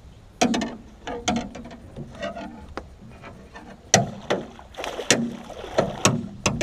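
An arrowed northern snakehead thrashing and splashing at the surface beside a metal jon boat, mixed with irregular knocks and clanks on the boat's deck and gunwale as the fish is fought and a landing net is brought over; the loudest hit comes about four seconds in, with a quick cluster near the end.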